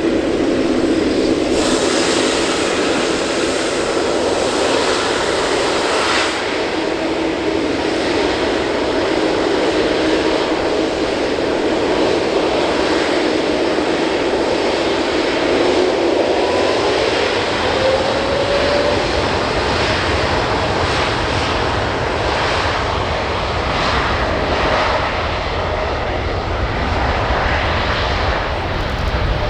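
Boeing 787-8 jet engines at takeoff power, a loud steady roar with a whine that glides up in pitch about two-thirds of the way through. A deeper rumble builds near the end.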